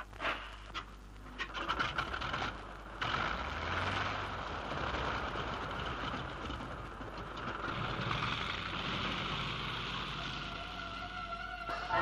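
A few sharp clicks, then a steady rushing noise with a low rumble underneath that cuts off as the music comes back in: an old radio-drama sound effect.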